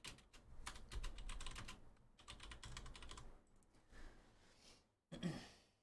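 Faint computer-keyboard typing: two runs of rapid keystrokes about a second each, a few stray keystrokes after, then one short, louder sound near the end.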